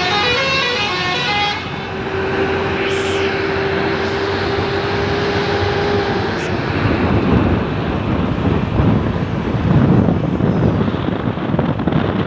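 A bus's 'telolet Pakistan' multi-tone air horn finishes a run of quick stepping melody notes, then holds one long steady note for about four seconds, with a short air hiss partway through. After the horn stops, the bus's engine and road noise swell and dominate.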